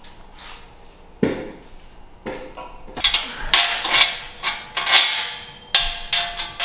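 Metal clanking as an exhaust pipe section is fitted up at its flange joint and the flange bolts are worked with a wrench: one heavy clunk about a second in, then from about three seconds a quick run of sharp clinks with a ringing metal tone.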